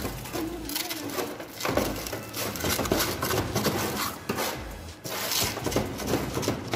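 Trowel and hand scoop scraping wet concrete across a metal tray and dropping it into a cube mould, in irregular gritty scrapes that get a little louder about five seconds in.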